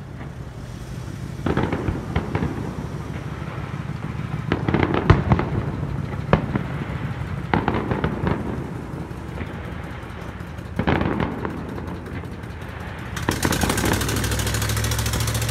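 Aerial fireworks shells bursting: a string of separate bangs, with a quick cluster of them about five seconds in. Near the end a steady rushing noise with a low hum takes over.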